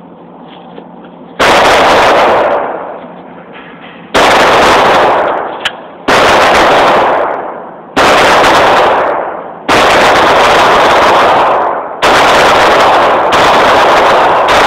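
Shots from a Glock 26, a subcompact 9 mm pistol, each a sudden very loud report that overloads the phone's microphone and fades slowly. The reports come roughly every two seconds. In the second half they come close enough that the sound barely falls between them.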